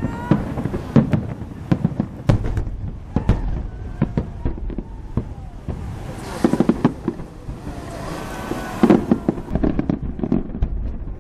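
A fireworks display: a steady string of shell bursts and sharp bangs, with dense crackling volleys about six seconds in and again near nine seconds, and a few rising whistles.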